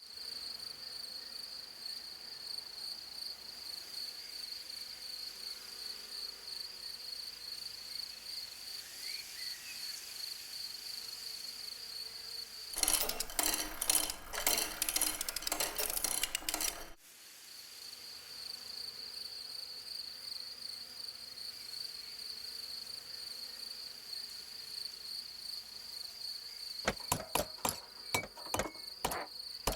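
Insects chirring in a steady, high, faintly pulsing trill. It is broken by a loud rattling run of rapid clicks lasting about four seconds, from about halfway through. Near the end there is a series of sharp, irregular clicks.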